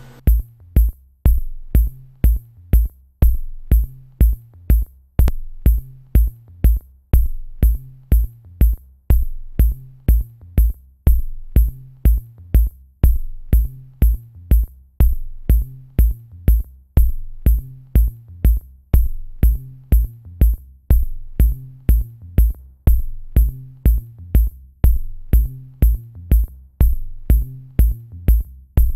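Electronic background music with a steady drum-machine beat, about two beats a second, over a repeating bass line.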